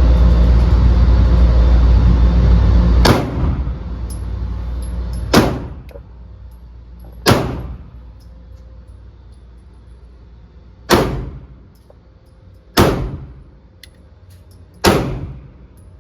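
Six single shots from a Glock 9mm pistol, fired slowly and unevenly about two to three and a half seconds apart, each a sharp crack with a short echo. A loud steady low rush fills the first three seconds and stops just as the first shot goes off.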